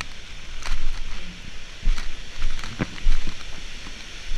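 Waterfall rushing as a steady loud hiss, with scattered sharp clicks and low thumps from close by.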